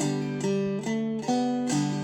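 Gourd banjo played clawhammer style in open G tuning (gDGBD): a slow, steady bum-ditty pattern of single struck melody notes and brushed chords, a new stroke about every half second.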